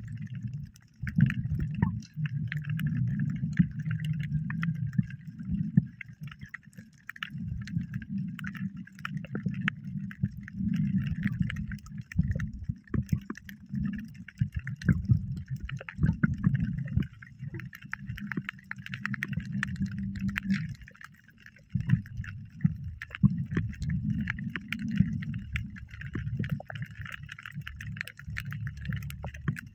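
Muffled water sloshing and gurgling, rising and falling unevenly, with short clicks scattered throughout.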